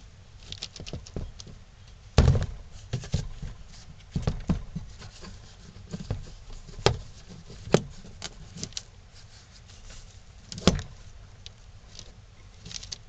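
Metal bar clamps being set and tightened on glued pine blocks: irregular clicks, knocks and rattles of the clamps against the wood and table, with a heavier knock about two seconds in and sharp clicks near the middle and end.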